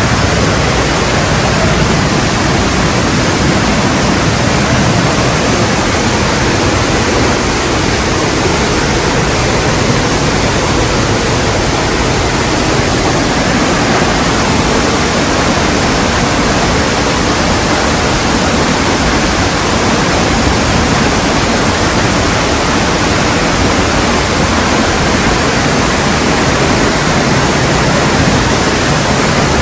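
Kaminari Falls waterfall: a close, loud, steady rush of falling water that does not change.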